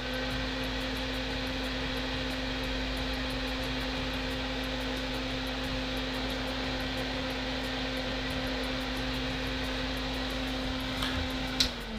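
Hakko FA-400 fume extractor's fan running at full speed: a steady hum over an airy rush, measured at about 75 dBA. The hum stops shortly before the end.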